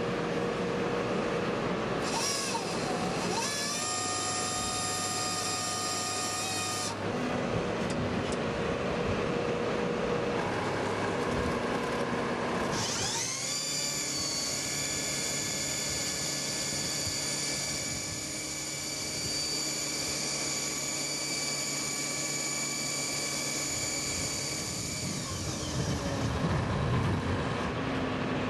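CRS-V sonic drill rig running, its sonic drill head driving steel casing into the ground with a high-pitched whine of many tones, once for a few seconds near the start and again for about thirteen seconds from the middle, rising in pitch as it spins up and falling away as it stops. The rig's power pack runs steadily underneath.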